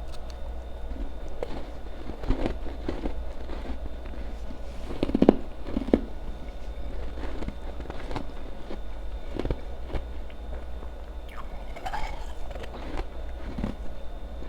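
Powdery ice being bitten and chewed close to the microphone: scattered crunches, a few seconds apart, the loudest about five seconds in, over a steady low hum.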